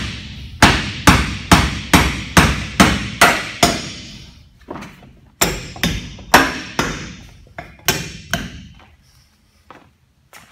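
Hammer blows on the bolts of a bolted tank-wall fitting, a little over two strikes a second: a steady run of about eight blows, a brief pause, then a second run of gradually lighter blows that stops about nine seconds in.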